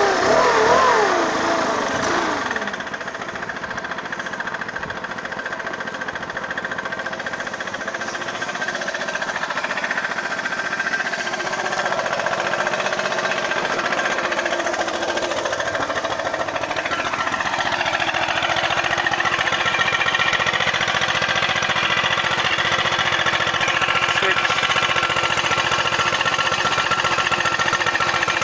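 Stihl BR 600 Magnum backpack leaf blower's engine running as it warms up. Its revs drop sharply in the first two seconds, and then it runs on steadily, getting somewhat louder over the second half.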